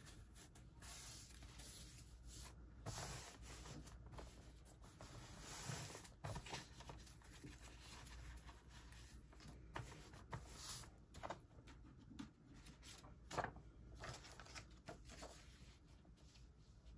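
Faint rustling and sliding of butcher paper and a sublimation transfer sheet being handled and smoothed flat, in short irregular crinkles with a sharper one about two-thirds of the way through.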